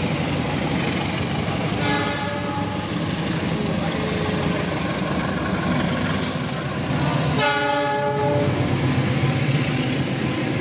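A diesel passenger train running past with steady rail and engine rumble, its locomotive horn sounding two short blasts, one about two seconds in and a louder one about seven and a half seconds in.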